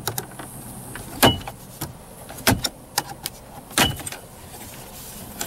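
Spring clips of a Dodge Challenger's plastic dash bezel snapping loose as the bezel is pried off: three sharp snaps about a second and a quarter apart, with lighter clicks between them.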